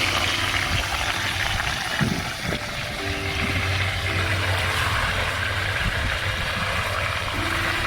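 Chicken pieces sizzling as they pan-fry in oil, with wind rumbling on the microphone.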